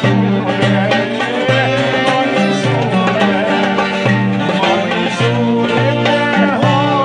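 Live piano accordion and clarinet playing a tune together: the accordion's bass keeps a steady pulse under an ornamented, wavering melody line.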